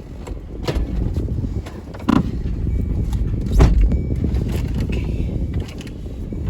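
Vehicle driving, a steady low rumble, with several sharp knocks and thumps; the loudest comes about halfway through.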